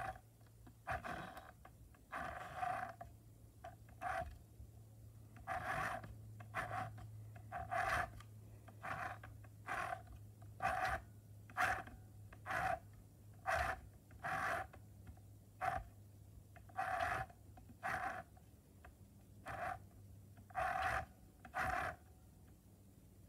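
Close, audible breathing through the nose, with a faint whistle, at about one breath sound a second, while hands work at a sewing machine; a low steady hum underneath.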